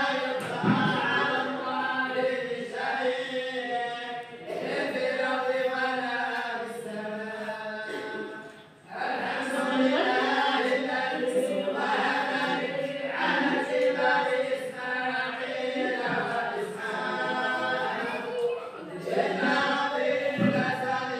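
A group of voices chanting in unison in long, drawn-out phrases with brief pauses between them, with no instruments: collective Quran recitation by a group of tolba.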